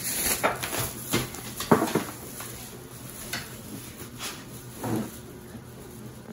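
A pit bull noses into a thin plastic shopping bag: the bag crinkles and rustles together with the dog's snuffling. The sounds come in a quick cluster over the first two seconds, then a few more separate ones later.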